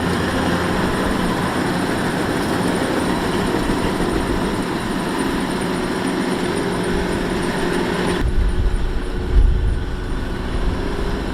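Kubota DC-105X rice combine harvester's diesel engine and machinery running steadily. About eight seconds in the sound changes abruptly: the higher part drops away and a duller, uneven low rumble remains.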